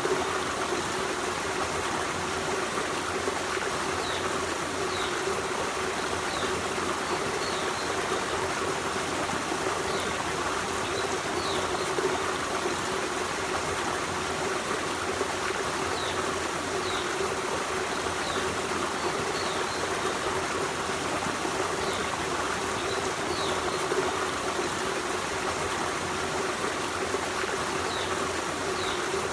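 Forest stream flowing with a steady rush of water, with faint short high chirps every second or two.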